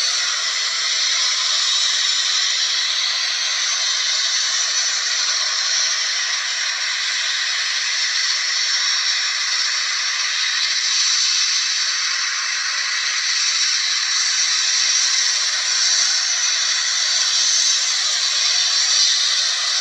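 Boeing 737-800's CFM56-7B jet engines at takeoff thrust: a steady, loud rushing hiss with a faint high whine, holding level after spooling up.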